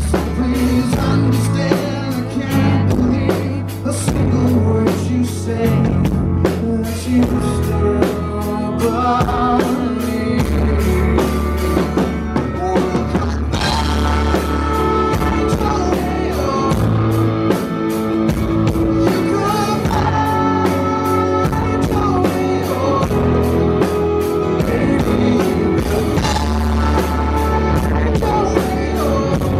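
Live rock band playing loudly: electric guitar, bass and drum kit, with a male lead vocalist singing over them.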